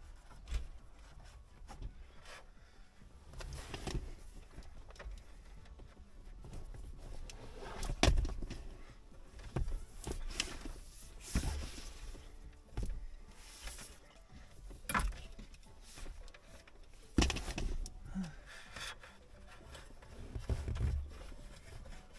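Handling noise from thick welding cables and wiring being worked into a vehicle dash: scattered rustling with irregular knocks and thumps, the loudest about 8 seconds in and again about 17 seconds in.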